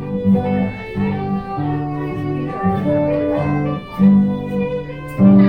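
Live English country dance tune played on fiddle and plucked strings (guitar and bouzouki), with recorder in the band: a steady dance melody.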